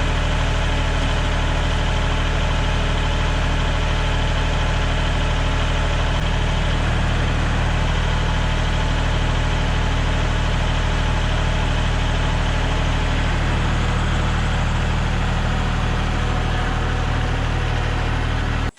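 An engine idling steadily with an even low hum, which cuts off abruptly near the end.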